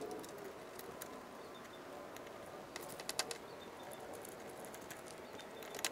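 Faint clicks and scrapes of a screwdriver turning the screws that hold the metal grate over a Cessna 150's foam air filter, with a cluster of clicks about three seconds in.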